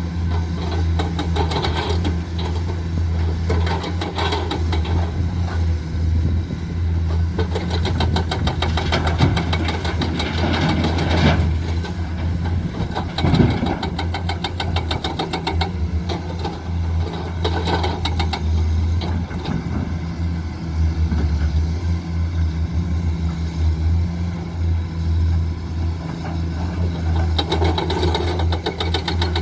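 Heavy diesel engines of an excavator and dump truck running steadily at a low hum, with scattered knocks and clatter as material is loaded into the truck, the loudest a few seconds before the middle.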